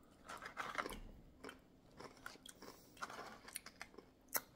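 Faint chewing and crunching of crunchy snack chips in irregular bites, with a sharp click near the end.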